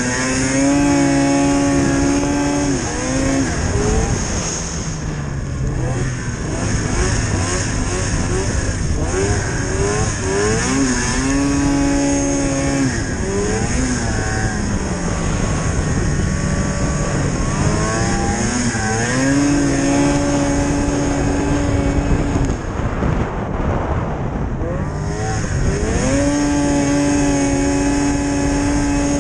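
1999 Arctic Cat ZR500 snowmobile's two-stroke engine running under way, revving up and easing off several times and holding steady high revs in between.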